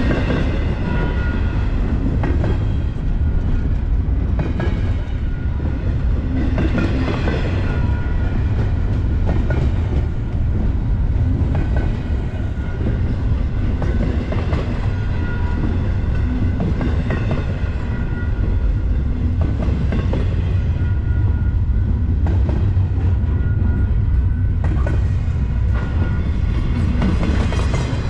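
Double-stack intermodal freight cars rolling past: steel wheels on rail give a steady low rumble with repeated clacks, and a faint high ringing over it.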